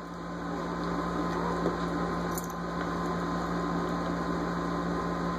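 A steady low hum with an even hiss of room noise underneath.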